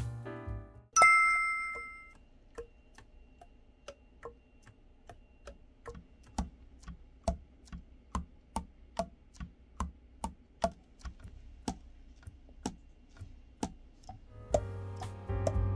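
Selmer Mark VI soprano saxophone keys pressed and released in turn, the pads tapping shut on the tone holes in short clicks about twice a second, as in a leak test after an overhaul. A single bright chime rings about a second in, and music comes back near the end.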